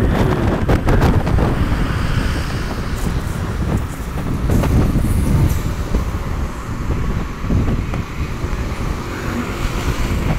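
City traffic heard from the back of a moving motorbike: a steady rumble of engines and road noise.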